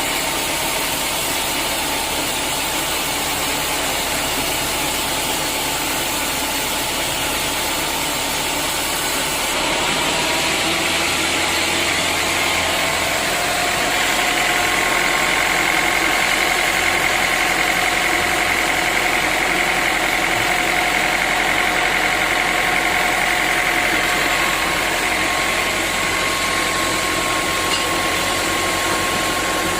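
Sawmill saw machinery running steadily. Partway through, a higher-pitched whine comes in and holds for about ten seconds before easing off.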